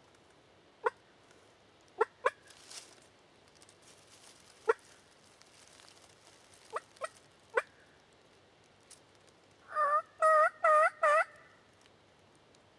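Turkey calls: short, sharp single notes every second or two, then near the end a louder run of four yelping notes, each dipping in pitch.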